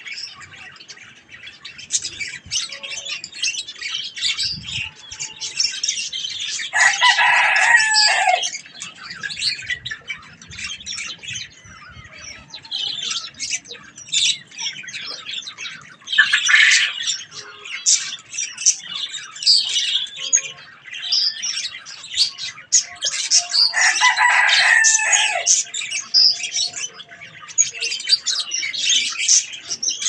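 Budgerigars chirping and chattering continuously in a dense run of short, high chirps. Louder, longer calls stand out about 7, 16 and 24 seconds in.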